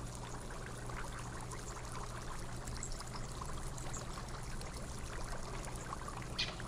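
Steady background hiss with a faint low hum, the room and microphone noise of the recording, with one short faint sound near the end.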